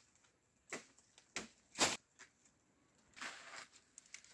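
Leafy fodder branches being cut in a tree with a blade: a few short, sharp rustling chops, the loudest about two seconds in, then a longer rustle of leaves a little after three seconds.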